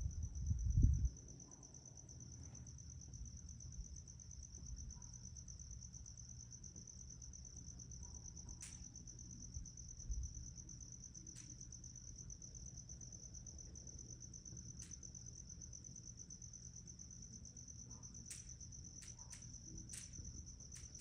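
Crickets chirping in a steady high trill over a low rumble, with a louder thump about a second in and a few faint clicks later on.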